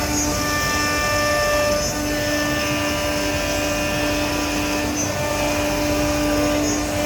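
CNC nesting router running, a steady whine made of several held tones over a rushing noise.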